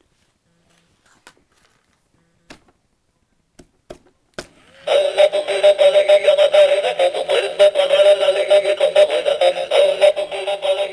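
A few faint clicks, then about five seconds in an animated plush gorilla toy starts playing a song with synthesized singing through its small built-in speaker.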